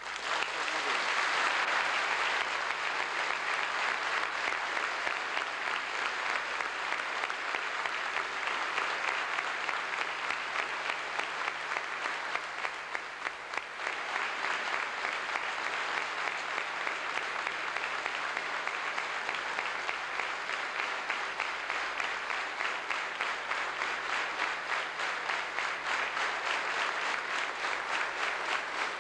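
A large hall audience applauding, sustained throughout. After a brief dip about halfway, the clapping falls into a regular beat.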